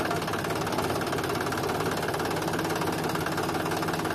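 Mahindra 265 DI tractor's three-cylinder diesel engine running steadily, with an even, rapid diesel clatter.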